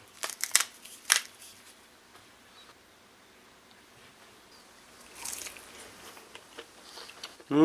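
Wooden chopsticks click a few times as a piece of shrimp and broad bean tempura is picked up. About five seconds in there is a short, soft crunch as the crispy tempura is bitten.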